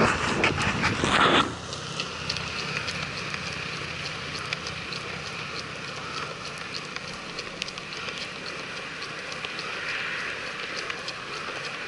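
Skateboard wheels rolling on smooth asphalt: a steady gritty hiss dotted with small ticks. A louder rushing burst comes in the first second and a half, then the rolling noise settles.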